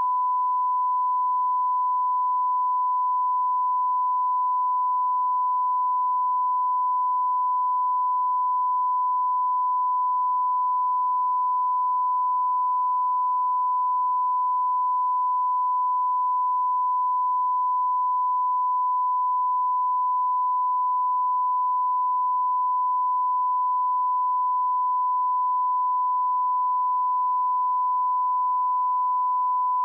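A steady 1 kHz sine-wave test tone, a single pure pitch held unchanged at -20 dBFS, used as a calibration signal for audio equipment.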